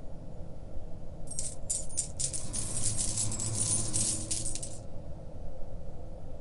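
A pile of metal coins clinking and sliding, a few separate clinks about a second in, then a denser jingling run for a couple of seconds that stops suddenly, over a steady deep rumble.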